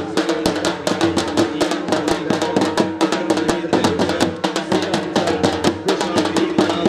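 Two dhol drums beaten in a fast, steady rhythm of sharp strikes, several a second.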